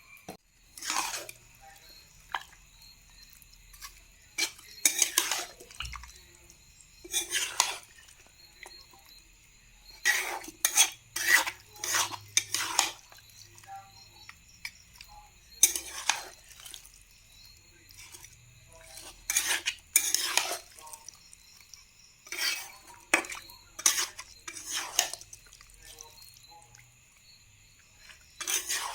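A metal spoon scraping and clinking against a cooking pot as the curry is stirred, in short bursts every few seconds with pauses between.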